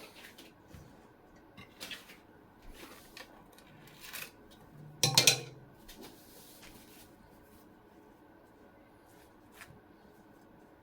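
Quiet kitchen handling noises: light taps and rubs of dishes and utensils, with one louder clatter, like a dish or utensil being set down, about five seconds in.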